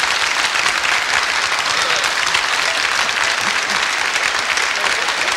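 Audience applauding steadily: the dense, even clatter of many hands clapping.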